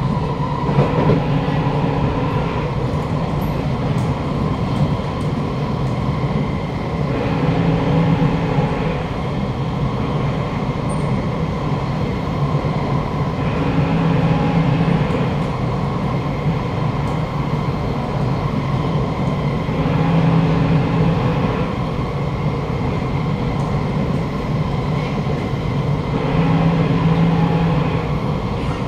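Inside a Kawasaki Nippon Sharyo C751B metro car running at speed: steady wheel and running noise with an underlying motor hum, swelling into louder patches about every six seconds.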